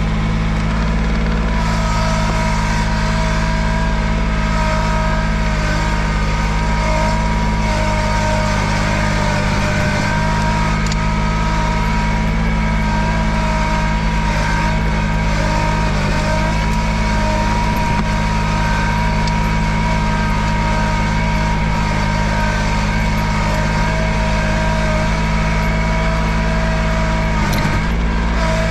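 Cub Cadet 1512 garden tractor's engine running steadily under load as it skids a chained log along a forest trail, with a steady whine over the engine note.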